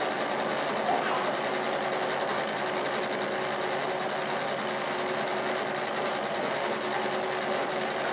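Drawing machines running with a steady mechanical whirring hum.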